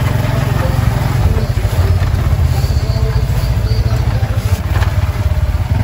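Motorbike engine running close by: a steady low rumble of rapid, even firing pulses.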